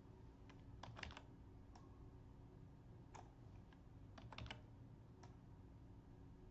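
Faint, scattered clicks of computer input devices over a low steady hum: about a dozen light clicks, some in quick runs about one second in and again about four seconds in.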